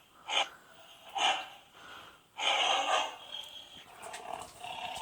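A pet's short snorting breaths: two quick puffs in the first second and a half, a longer louder one about two and a half seconds in, then fainter snuffling.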